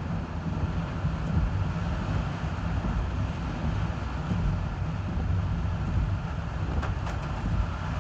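Car driving in typhoon weather: a steady low rumble of road and wind buffeting, under an even hiss.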